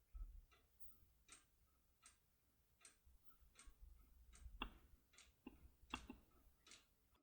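Faint, sharp metallic clicks, roughly one a second and bunching closer together past the middle, from a force key being worked in a Picard A2P lock cylinder as the turning load is gradually increased.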